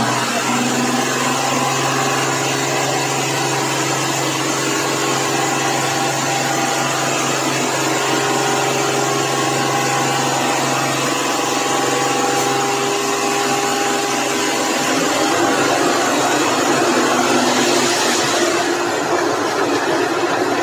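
Heavy diesel engine of road-paving machinery running at a steady speed, a continuous drone; about three quarters of the way in, the even tone gives way to a rougher, noisier sound.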